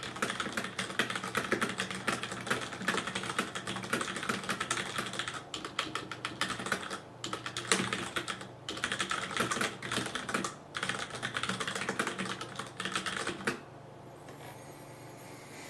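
Fast typing on a Ducky DK9800 G2 mechanical keyboard with Cherry MX Brown switches, a rapid run of keystrokes with the keys bottoming out, which makes it fairly loud. The typing breaks off briefly a few times and stops about two seconds before the end, leaving a faint hum.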